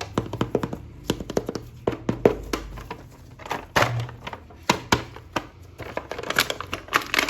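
Hands handling a plastic action figure and its packaging: irregular clicks, taps and short crinkling rustles.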